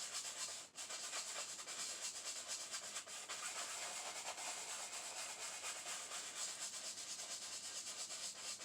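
Oil-painting brush scrubbing paint onto canvas in rapid short strokes, a dry scratchy rubbing with a brief pause under a second in.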